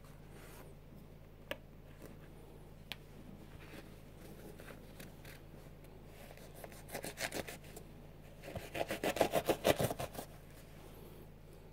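Sneaker laces and fabric upper rubbing under fingers: two faint clicks, then two runs of quick rubbing strokes in the second half, the later run louder.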